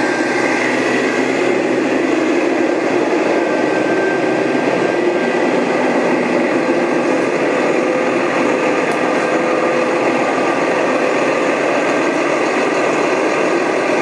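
Work truck's engine running steadily.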